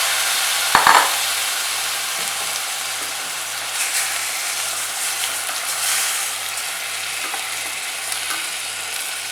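Prawns sizzling in hot oil and ghee with browned onions in a frying pan, being stirred, with a sharp knock about a second in.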